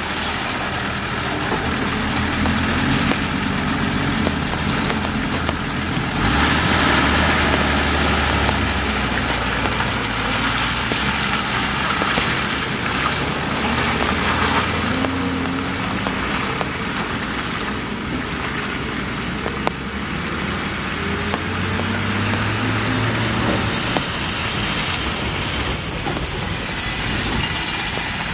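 Heavy diesel trucks and a bus crawling over a wet, potholed road: engines running at low revs and tyres splashing through puddles, loudest as a truck passes close several seconds in, with an engine revving up near the end.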